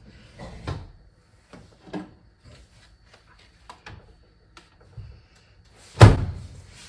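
A few small clicks and knocks, then the door of an over-the-range microwave shut hard with a single loud slam about six seconds in.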